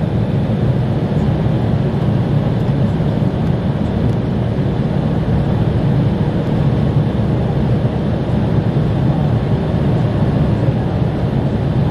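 Steady low rumble inside the cabin of an Embraer E-170, from its two GE CF34-8E5 turbofan engines running at low power, heard from a window seat beside the wing. There is no spool-up.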